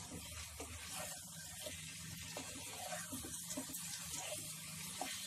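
Chicken masala sizzling in a nonstick pan on a high flame, with soft scrapes and knocks from a wooden spatula stirring it, and a steady low hum underneath.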